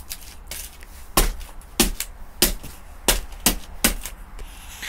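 A smashed Android tablet screen crunching under a shoe: about six sharp cracks of broken glass and plastic, roughly every half second, as the shattered layers are pressed.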